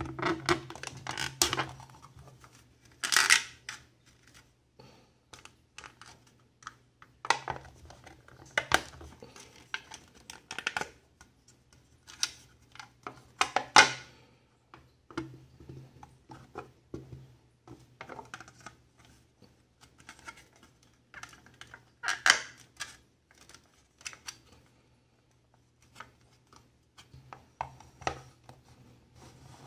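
Plastic figure parts and stand being handled and fitted together: scattered clicks, taps and scraping of hard plastic, with a few louder knocks.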